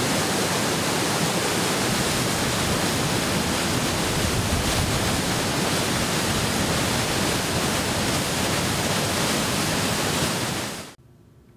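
Steady rush of fast-moving water, even and unbroken, that cuts off suddenly near the end.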